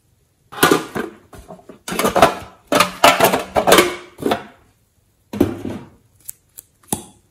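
Small hard toy containers, among them a printed tin box, being handled and knocked together, clattering and rattling in several bursts, then three short clicks near the end.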